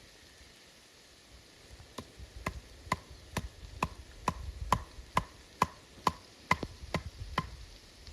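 Steady series of about a dozen sharp knocks of a tool striking wood, a little over two a second, starting about two seconds in, as in chopping or pounding wood.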